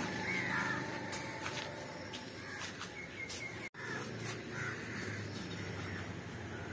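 Open-air market background noise with birds chirping now and then; the sound drops out for an instant about halfway through.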